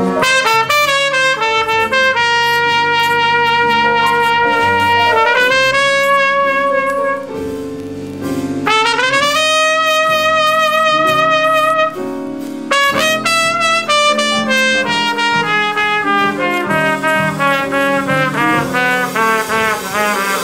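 Jazz trumpet improvising a solo: long held notes, some scooped up into pitch, then a quicker run of short notes over the second half, with lower accompanying notes underneath.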